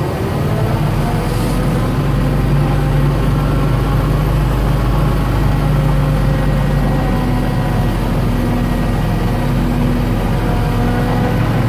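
1969 M43B1 military truck pulling slowly in first gear, heard from inside the cab: the engine running steadily under load with the whine of its transmission and transfer case gears, which rises a little in pitch over the last couple of seconds.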